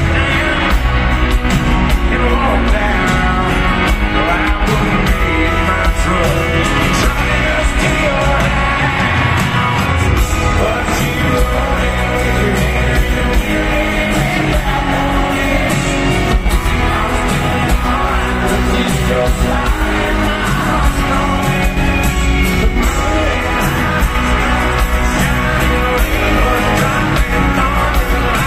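A live country band plays with a male lead singer on acoustic guitar, heard over an arena sound system, while the crowd sings and shouts along.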